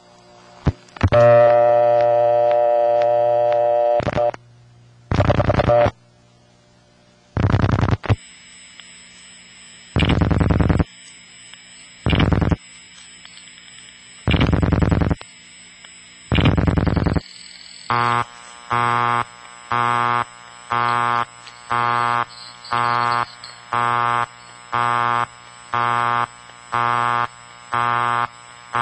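Telephone line audio from a Bell System step-by-step community dial office: a loud buzzy tone, then a run of irregular buzzy bursts. About two-thirds of the way in, the newer Bell System step CDO busy signal starts, a buzzy tone pulsing on and off about once a second, with a faint steady high whine under it.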